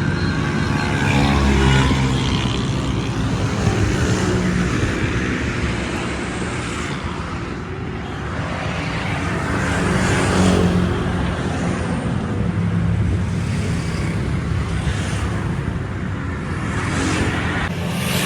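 Road traffic: motor-vehicle engines running with a steady low hum, and vehicles swelling past and fading several times.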